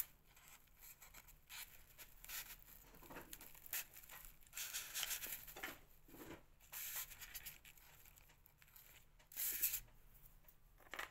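Faint rustling and crinkling as a ribbon flower and small craft embellishments are handled and pressed into place, in short scattered bursts.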